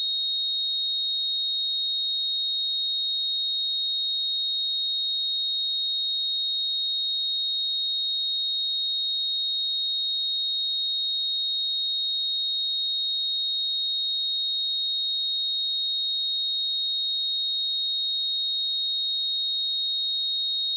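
A steady, unbroken 3742 Hz pure sine-wave test tone, a single high-pitched whistle-like pitch with no harmonics, used to check speakers and headphones.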